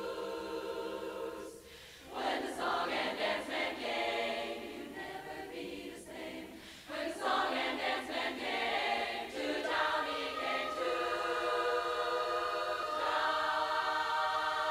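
Large women's chorus singing a cappella in barbershop harmony. The singing breaks off briefly about two seconds in, moves through quicker syllables, then settles into long held chords in the second half.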